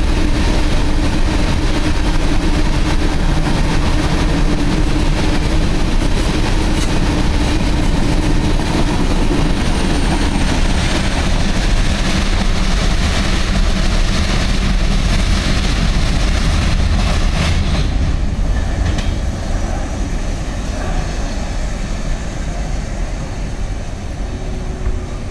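Empty ore gondola cars of a freight train rolling past on the rails, their wheels giving a steady loud running noise. The noise fades about three-quarters of the way through as the tail of the train draws away.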